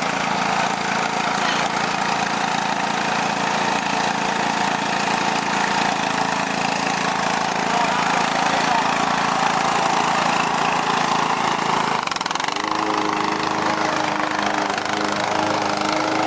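Riding lawn mower engine running steadily while the mower is driven. About twelve seconds in its note dips and changes, then holds steady at the new pitch.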